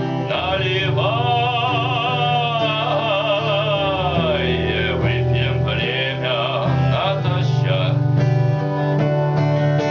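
Male voice singing a held, wavering line with strong vibrato over guitar accompaniment; plucked guitar notes come through more clearly in the second half.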